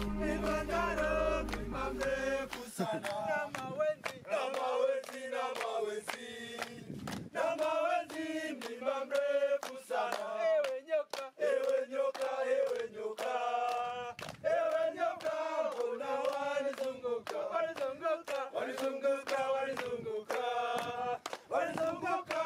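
Background music for the first few seconds stops suddenly. A group then sings together in Swahili, clapping hands in time throughout.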